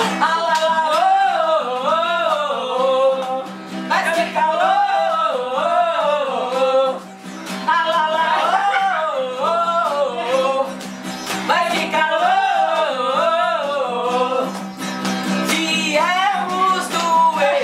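A woman singing a carnival marchinha to her own strummed acoustic guitar, in four sung phrases with short breaks between them.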